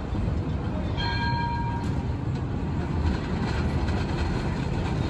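Tram approaching along street track, a steady low rumble of its running on the rails. About a second in, a brief ringing tone sounds for under a second.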